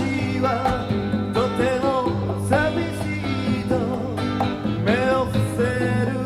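Guitar duo playing a bluesy country-style passage on a cassette-tape recording: a lead line with sliding, bending notes over sustained low notes.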